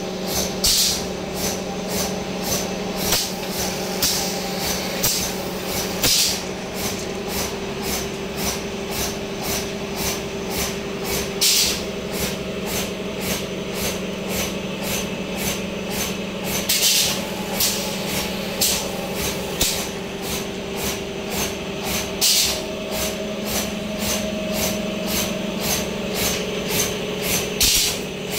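Copper tube straightening machine running: a steady motor hum under a rapid, even clicking of about three clicks a second, with a louder knock every few seconds.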